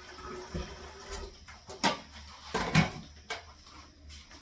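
A few sharp knocks and clatters, the loudest about two seconds in and another soon after, over faint rustling and handling noise.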